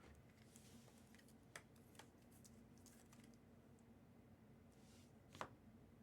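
Near silence with a few faint clicks and rustles of trading cards being handled, the sharpest click about five and a half seconds in.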